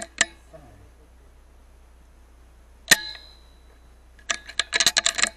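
A single sharp rifle shot about three seconds in, with a short metallic ring after it, fired at flying foxes roosting in a tree. Near the end comes a quick burst of about a dozen sharp clicks.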